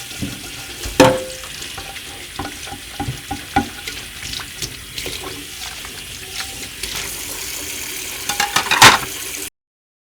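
Water running steadily, with scattered knocks and clinks, the loudest about a second in and a cluster near the end, then it cuts off abruptly.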